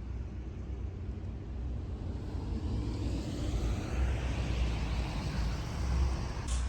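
Car driving, with a steady low engine and road rumble and tyre noise that grows louder in the second half.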